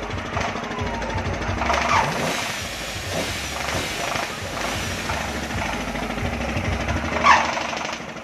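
Stationary diesel engine driving a kora-kora swinging-boat ride, running steadily through a loud exhaust with a low, even thudding. Brief rising high-pitched cries sound about two seconds in and again, louder, near the end.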